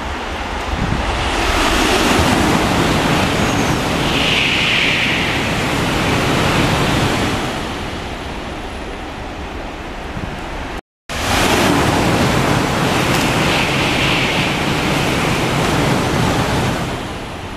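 Shinkansen bullet trains passing through a station at speed without stopping: a loud rushing noise of wind and wheels that builds, holds for several seconds and dies away, twice, with a brief break about eleven seconds in between the two passes.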